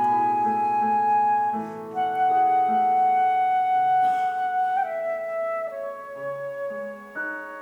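Flute playing a slow melody of long held notes that step downward, with a breathy edge about four seconds in, over a lower instrument sounding steady repeated notes.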